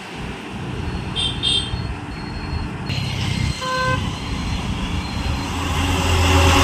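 Road traffic noise, then an Eicher box truck's diesel engine growing louder as the truck approaches and passes close, loudest near the end. A brief horn toot sounds just before the middle.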